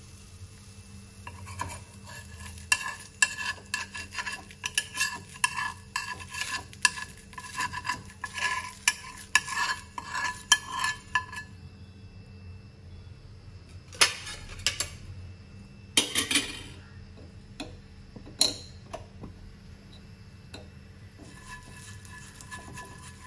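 A spoon stirring appam batter in a bowl, clinking against its sides in quick, uneven strokes for about ten seconds. A few seconds later come two louder clatters of utensils.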